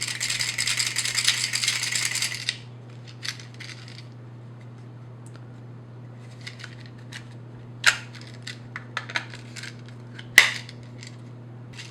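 Steel handcuffs and a holster being handled: a dense rapid metallic rattle for about two and a half seconds, then scattered light clicks and two sharper snaps, the second the loudest, near the end. A steady low electrical hum runs underneath.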